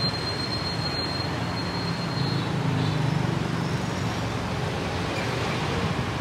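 Steady road traffic noise, a continuous low hum of passing vehicles. A thin, high-pitched whine sounds over it for the first two seconds or so.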